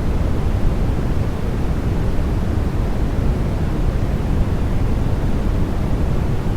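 Continuous artificial white noise for baby sleep: a steady, unchanging rushing hiss, deep-toned, with most of its energy low and little in the highs.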